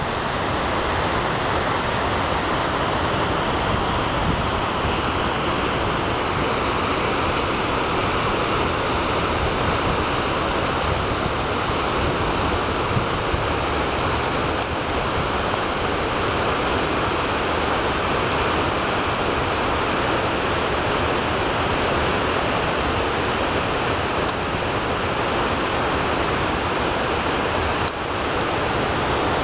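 Waterfall rushing, a steady, unbroken noise of falling water.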